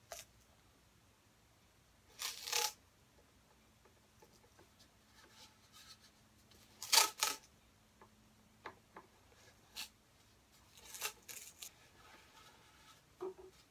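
Tape being pulled off a roll in three short pulls, about two, seven and eleven seconds in, the middle one loudest, as it is pressed around a wooden didgeridoo tube. A few light clicks and handling taps fall between the pulls.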